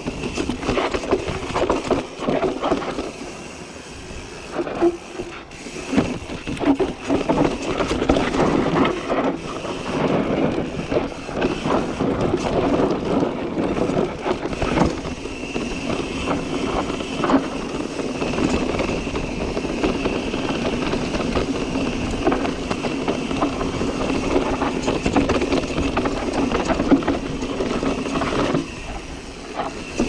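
Specialized Stumpjumper mountain bike riding a dirt trail: steady tyre and wind noise with frequent clatter and knocks from the chain and frame over bumps. The noise eases for a few seconds about four seconds in.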